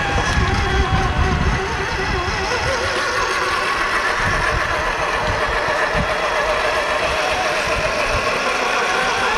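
Radio-controlled scale 4x4 truck's electric motor and gearbox whining, the pitch rising and falling with the throttle, over a low rumble that is strongest in the first second or so.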